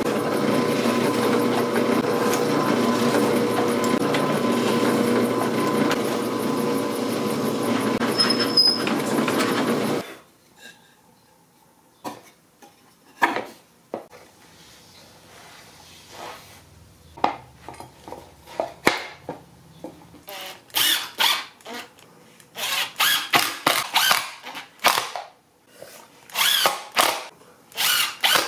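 Drill press running steadily, boring holes into a plywood frame, for about ten seconds, then it stops. After a quieter stretch with a few handling knocks, a Makita cordless driver drives screws in a string of short bursts.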